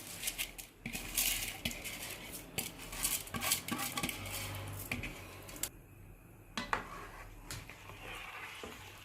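Soaked rice being added to a pot of boiling water, with repeated clinks and scrapes of utensils against the metal pot.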